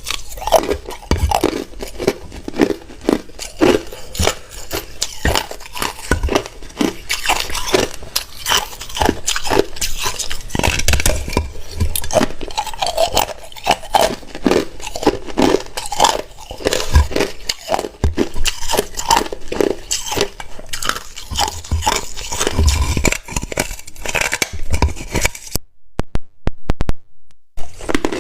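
Hard ice being bitten and chewed close to the microphone: a dense run of loud, sharp cracks and crunches, broken by a short pause near the end.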